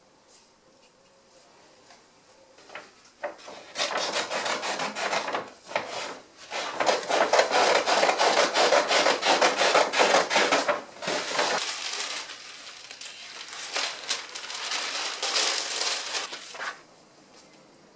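A large roll of brown kraft paper rustling and crackling loudly as it is unrolled and handled on a workbench, then softer paper rustling from about twelve seconds in, stopping shortly before the end.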